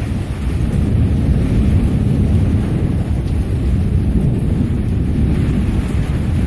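Rolling thunder rumbling, swelling about a second in and holding for several seconds before easing near the end, over steady rain.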